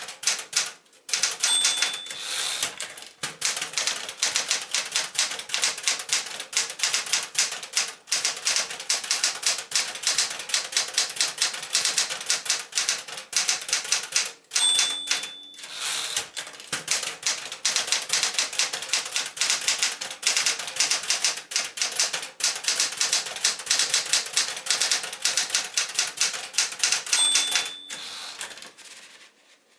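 1974 Smith-Corona Galaxie Twelve manual typewriter typing in a fast, steady run of key strikes. Three times, about two seconds in, midway and near the end, the margin bell gives a short ring as a line nears its end, followed by a brief break in the typing. The typing stops shortly before the end.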